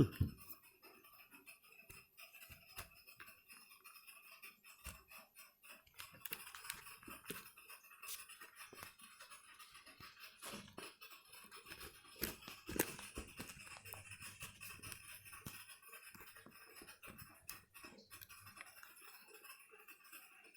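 Faint scattered clicks and taps of a laptop's bottom cover and small parts being handled, a few louder knocks a little past halfway.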